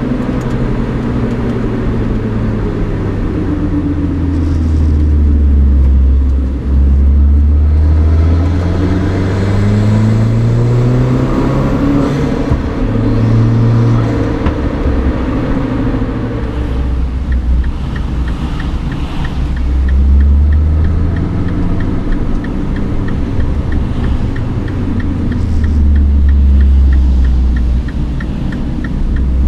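Mini Cooper R56 John Cooper Works with a DOS cold air intake, its turbocharged 1.6-litre four-cylinder engine pulling hard through the gears. The pitch rises under acceleration and drops at each shift, several times over. In the second half a fast, light ticking runs alongside the engine.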